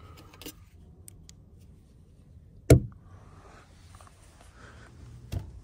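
Pulling on winter boots inside a cramped vehicle cabin: faint rustling and small clicks, with one sharp thump about halfway through.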